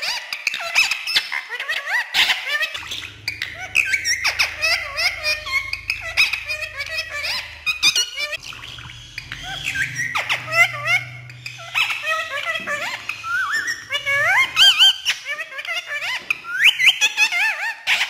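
Indian ringneck parakeet chattering non-stop in quick high calls, squeaks and whistles, mixed with mimicked talking.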